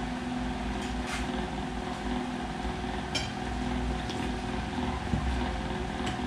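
A steady low mechanical hum made of several held tones, with a couple of faint light clicks about one and three seconds in.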